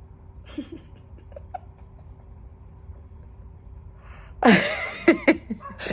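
A person yawning: a loud, breathy, drawn-out vocal yawn starting about four and a half seconds in, its pitch sweeping upward, after a few seconds of faint breathing.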